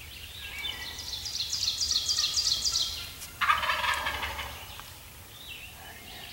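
Wild turkey gobblers gobbling: a long, rapid rattling run of gobbles over the first three seconds, then a louder gobble about three and a half seconds in.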